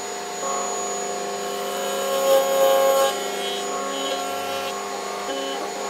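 Table-mounted router running at full speed, a steady whine of several tones, getting louder for about a second around two seconds in as the bit cuts dovetails into a board held upright in a dovetail jig.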